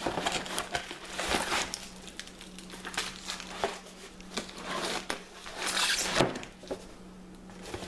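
Cardboard shipping box and paper- and plastic-wrapped parts being handled: rustling and crinkling of the wrapping with scattered clicks and knocks as the box is tipped and the parts are taken out.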